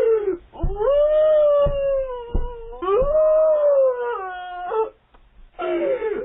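A woman wailing outside a front door in long, high, drawn-out cries that fall in pitch at their ends, with about four heavy thuds in the first three seconds as she bangs on the door. Picked up through a doorbell camera's microphone.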